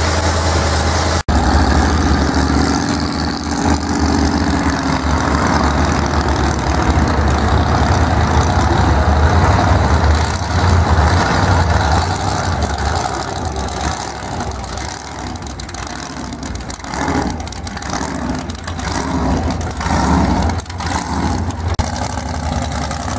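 Supercharged 440 big-block V8 of a Plymouth Satellite running with a deep, steady rumble. There is an abrupt cut about a second in, and in the second half the engine's level rises and falls in surges.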